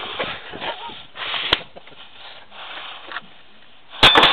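A restrained cow breathing hard through her nose in short, noisy puffs, then a sudden loud clatter of knocks about four seconds in.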